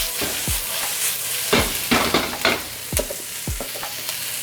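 Sliced bell peppers and onions sizzling in a hot, oiled pan, stir-fried with a utensil that knocks and scrapes against the pan about every half second.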